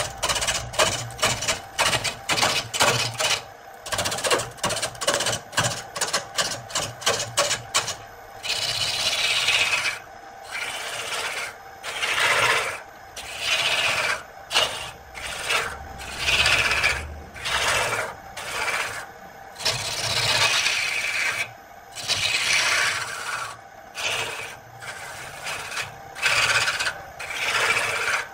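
Wood-lathe turning gouge cutting into a spinning wood blank, shavings tearing off with a rasping scrape. The cuts are short and quick, several a second, for the first eight seconds or so, then become longer passes of about a second each with brief pauses between.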